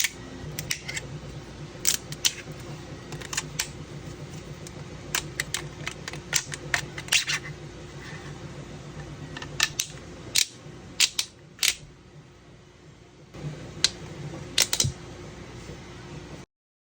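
3D printer running: a steady hum with sharp clicks and taps scattered through it. The hum drops away for about three seconds, about ten seconds in.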